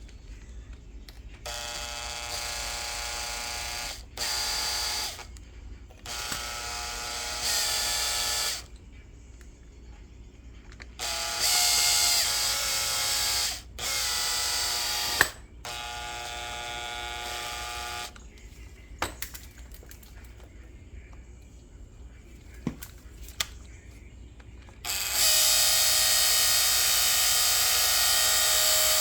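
A small cordless power driver whirring in seven short runs of one to four seconds each, the pitch shifting a little from run to run, with a few light clicks between runs. The longest and loudest run comes near the end.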